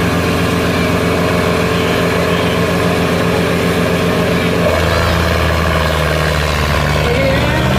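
Diesel tractor engines of a John Deere 5310 and a Sonalika 750 running while hitched together for a tug-of-war. About two-thirds of the way through the note drops and grows heavier as the Sonalika is throttled up under load, putting out black smoke, and near the end the engine pitch starts to rise.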